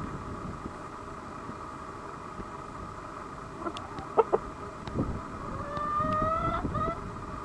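Chickens calling: a few short clucks about four seconds in, then a longer drawn-out call that rises slightly in pitch around six seconds in.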